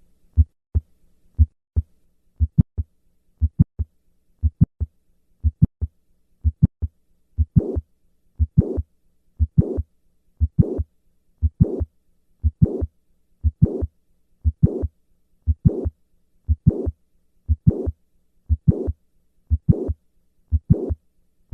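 Recorded heart sounds from a patient with mitral valve prolapse: lub-dub beats about once a second. From about seven seconds in, a systolic murmur is added to each beat, the sign of mitral regurgitation through the prolapsing valve.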